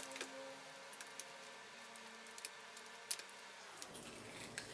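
A few faint, sharp clicks and taps: the old LCD panel's video cable connector being unplugged and the panel handled.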